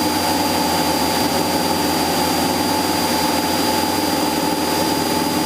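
Cessna 172SP's four-cylinder Lycoming engine and propeller droning steadily in the cabin in flight, a constant dense hum with no change in pitch.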